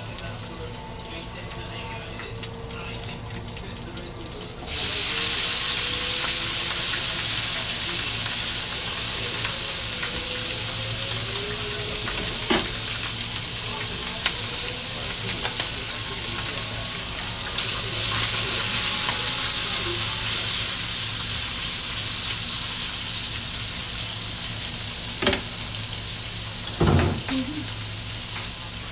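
Garlic frying quietly in oil in a frying pan. About five seconds in, sliced meat goes into the hot pan and a loud, steady sizzle sets in and holds, with a few short knocks in the middle and near the end.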